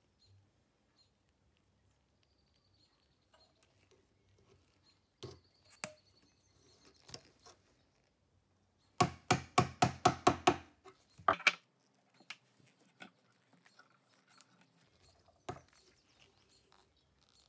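Small sharp metallic clicks and scrapes as corroded pieces of an old ratchet screwdriver's rusted sleeve are picked and pried off by hand. Near the middle comes a quick run of about ten crisp clicks, roughly six a second, followed by a few single clicks.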